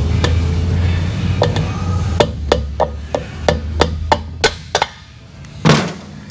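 A mallet tapping on parts of a Harley-Davidson Twin Cam engine's top end: a string of about ten light, quick taps, about three a second, then one heavier knock near the end.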